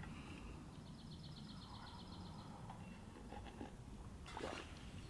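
Faint forest ambience with a small bird's trill: a quick, even series of high notes lasting about two seconds.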